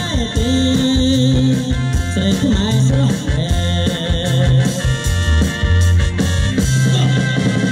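Live band music with electric bass guitar, keyboard and drums, and a male singer's amplified voice.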